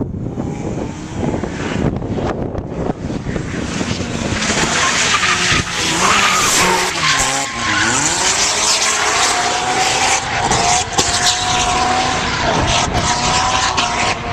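Drift car sliding through a lot with its tyres squealing and its engine revving. The revs drop and climb again about seven seconds in, and a steady tyre squeal holds from about nine seconds on.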